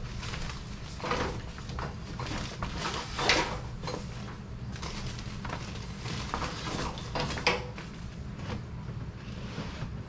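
Scattered light knocks and taps with rustling as electrical cable is handled and fastened overhead from a ladder. The clearest knocks come about a second in, a little after three seconds, and about seven and a half seconds in.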